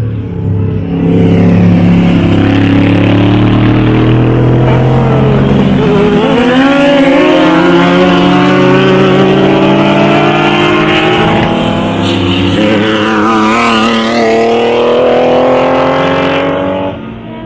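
Several race cars passing at full throttle one after another, their engines rising in pitch as they accelerate and dropping as they go by. The sound stops suddenly near the end.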